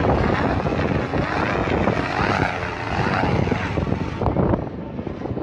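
Gusty wind rushing over the microphone, rising and falling in strength, with no steady tone under it.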